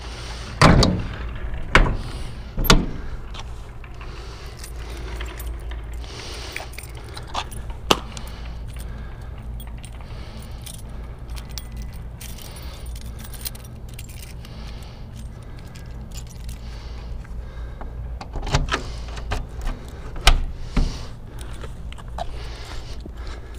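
Metal clanks and clicks from a truck's side toolbox lid being shut and its chrome paddle latch being worked: three sharp knocks in the first few seconds, small clicks through the middle, and another cluster of knocks near the end, over a steady low rumble.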